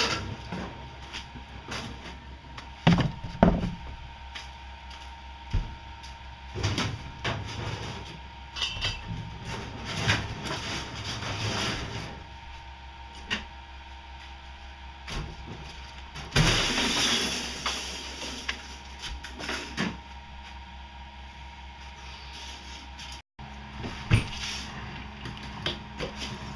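Plywood shipping crate being taken apart by hand: scattered knocks and thumps of loose wooden panels, with a longer scrape of a panel being slid about two-thirds of the way through. The loudest is a pair of knocks about three seconds in.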